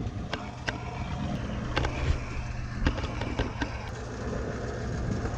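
Engine of a loaded flatbed gravel truck running steadily at low revs, with scattered light clicks and knocks.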